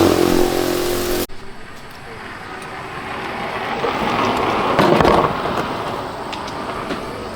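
A motor running with a steady pitch, cut off abruptly about a second in. Then a quieter, engine-like noise swells to a peak about five seconds in and fades.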